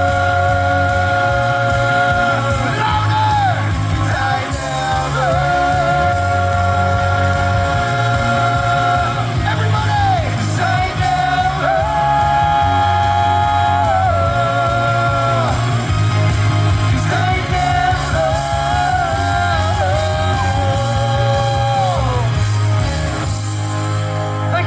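Live band playing a rock song, with a singer holding long notes over bass and drums.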